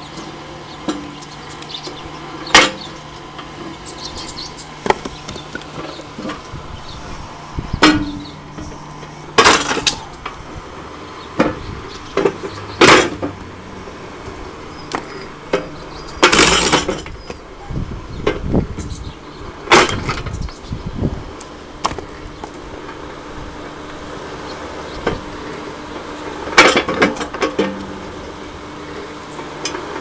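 Homemade electric log splitter running with a steady motor hum as its ram pushes logs onto the wedge. Loud sharp cracks and knocks of wood splitting and split pieces dropping come every few seconds.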